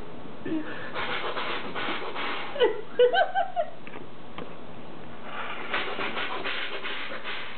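A baby making weird vocal noises: runs of rapid, breathy, panting-like sounds, with a few short high squeals about three seconds in and another run of the breathy sounds near the end.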